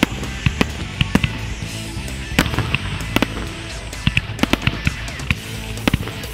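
Aerial fireworks bursting: many sharp bangs and pops at irregular intervals, coming thickest in a rapid cluster about four to five seconds in, with music playing underneath.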